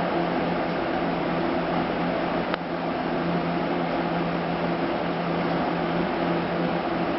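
Steady machine hum with a low droning tone under an even hiss, like a fan or air conditioner running, with one sharp click about two and a half seconds in.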